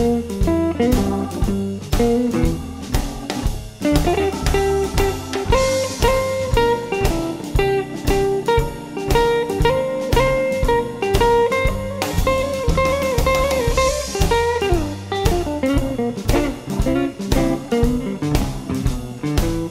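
Electric blues band playing an instrumental stretch between vocal lines: a guitar-led melody over a steady drum-kit beat and bass.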